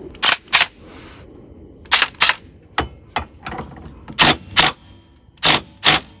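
DeWalt cordless driver running the rear axle nut onto a Honda CR-V's new wheel hub in short trigger bursts, about ten of them, mostly in pairs a third of a second apart, snugging the nut before it is torqued by hand.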